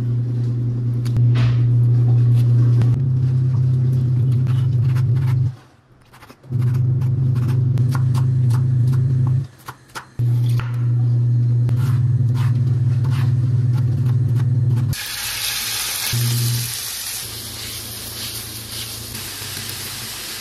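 A chef's knife cutting on a wooden cutting board, a run of sharp taps over a low steady hum. About three-quarters of the way through this gives way to a loud sizzle of diced pork, onion and red pepper frying in a pan.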